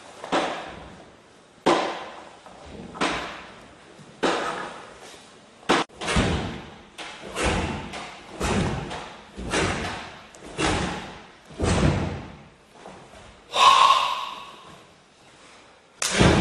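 Karate kata performed on a wooden dojo floor: sharp snaps of the gi and thuds of feet, about one a second, each with a short echo in the hall. A louder, longer burst comes about fourteen seconds in.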